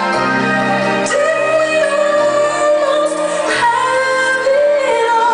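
A song: a solo voice singing long, held notes over accompaniment with a steady bass line. Near the end a long high note with vibrato begins.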